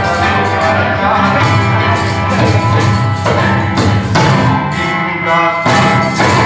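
Live band music: keyboard, acoustic guitar, a barrel-shaped hand drum and tambourine playing a gospel song, with singing over it. There is a brief drop just after five seconds in.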